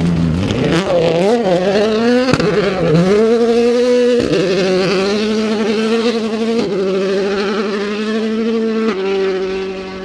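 2017 World Rally Car's 1.6-litre turbocharged four-cylinder engine at full throttle on a gravel stage. The note wavers through a slide in the first couple of seconds, then the car pulls hard through the gears, with four quick upshifts about two seconds apart.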